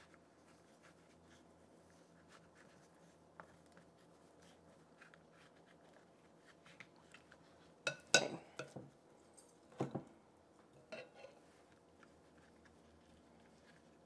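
Hands working a crumbly baking soda and washing soda paste: faint scraping and crunching as it is pressed into plastic ice cube trays, then a cluster of louder clinks and scrapes from the glass mixing bowl as more is scooped out about eight seconds in, with two shorter ones near ten and eleven seconds.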